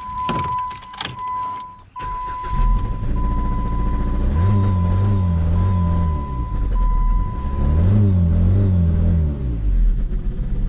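2015 Jeep Patriot four-cylinder engine starting about two seconds in, then idling and being revved up and back down twice, with its throttle body unplugged for the test. A warning chime beeps steadily through the first part.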